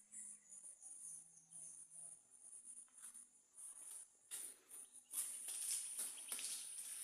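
Crickets chirping in a high, pulsing trill, with a louder rushing hiss over it in the last two seconds or so.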